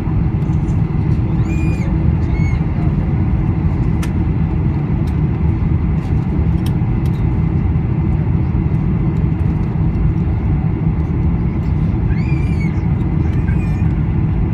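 Steady low cabin rumble inside a Boeing 747-400 airliner, with a few brief high-pitched chirps about two seconds in and again near the end.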